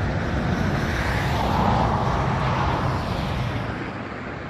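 A vehicle passing, a broad rushing noise over a steady low rumble that swells about a second in and fades after about three seconds.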